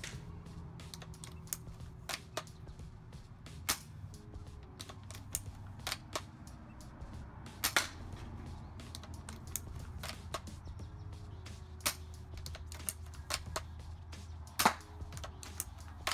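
ASG AW .308 spring-powered bolt-action airsoft sniper rifle firing about five light shots a few seconds apart, with smaller clicks of the bolt being worked between shots.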